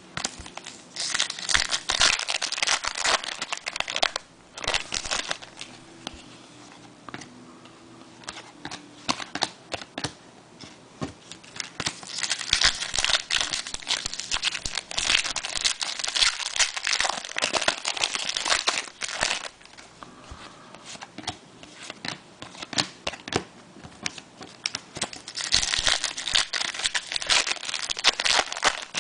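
Trading card pack wrappers being torn open and crumpled, in several bursts of crinkling with quieter stretches between.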